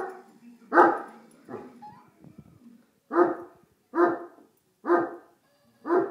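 Newfoundland dog barking at a mechanical toy running across the floor. There is one bark about a second in and a weaker one just after, then four short barks spaced about a second apart.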